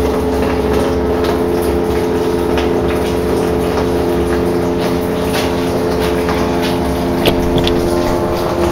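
A submersible sump pump, about a third horsepower, running steadily inside a plastic barrel with a steady hum. It is pumping sugar syrup out through PVC pipe and a hose into a jug, with the sound of liquid flowing. Scattered short clicks sound over it.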